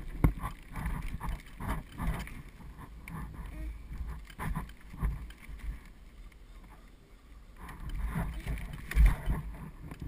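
Child's bike trailer rolling over pavement behind a bicycle: irregular knocks and rattles from the trailer over bumps, over a low rumble of wind and tyres. There is a louder thump about nine seconds in.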